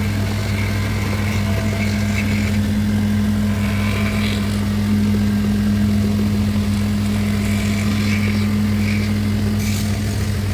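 Electric motor of a woodworking machine humming steadily at an even pitch, with faint brief higher sounds coming and going over it.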